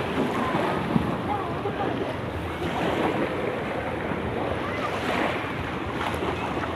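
Shallow sea water washing and splashing around people wading in the surf, with wind buffeting the microphone.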